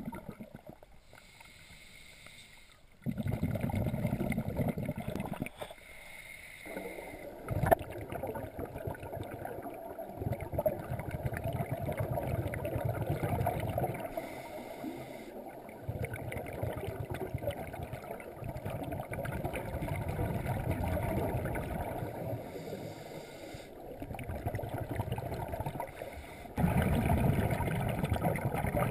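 Scuba regulator exhaust bubbles rumbling and gurgling underwater in long bursts with quieter gaps between, the rhythm of a diver's breathing. A single sharp click about a quarter of the way in.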